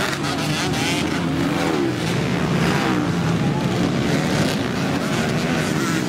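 Motocross dirt bikes racing past, several engines revving up and down as the riders work the throttle through the track.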